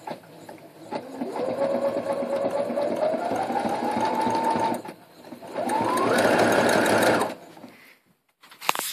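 Electric sewing machine stitching fabric in two runs: the motor speeds up with a rising whine, runs for a few seconds and stops about halfway through, then starts again with a quicker rise and runs for under two seconds before stopping. A sharp click follows near the end.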